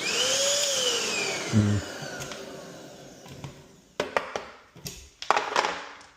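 Bissell 3-in-1 stick vacuum switched on: its motor whine rises for a moment, then falls away over about three seconds as it cuts out again, the fault behind the brush head that won't keep spinning. A thump about a second and a half in, then a few clicks and rattles near the end.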